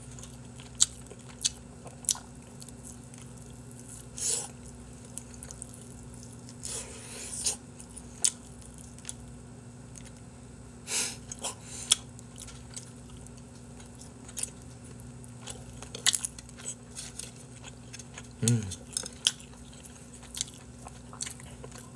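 A person chewing and biting into sauced chicken skewers close to the microphone: irregular wet mouth smacks and sharp little clicks, over a steady low hum. A short hum of voice about eighteen seconds in.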